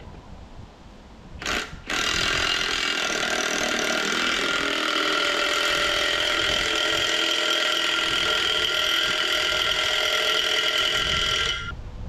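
Handheld power tool working at the top of a disk harrow's stacked disc gang. A short burst comes first, then the tool runs steadily for about ten seconds with a whine of several even pitches, and cuts off suddenly near the end.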